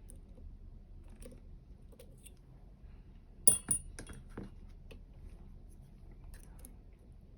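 Metal clicks of a dimple pick and tension tool working the pins of a U-Shin Showa NX three-row dimple lock: scattered faint ticks, with a quick run of four or five sharper clicks about halfway through, the first the loudest with a brief high metallic ring.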